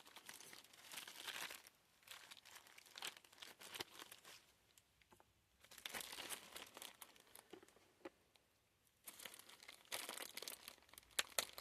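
Faint crinkling and tearing of packaging being opened by hand. It comes in stretches, broken by two short pauses.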